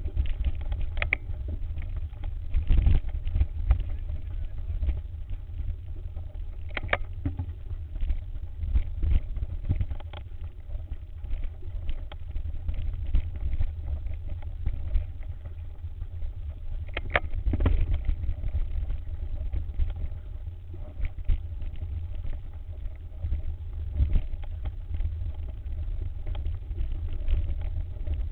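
Mountain bike riding a rough singletrack, heard through a camera mounted on the bike or rider: a continuous low rumble of wind and rattling on the mount, with sharp knocks as the wheels hit rocks and roots, clearest about 1, 3, 7 and 17 seconds in.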